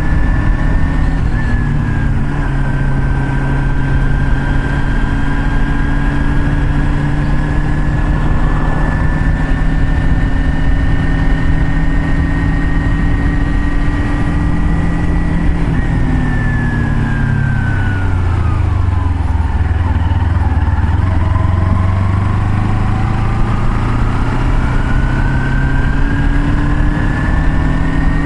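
A road vehicle's engine running at cruising speed over a steady rush of wind and road noise. About 16 seconds in, the engine note falls as it slows down, then climbs again from about 21 seconds as it speeds back up.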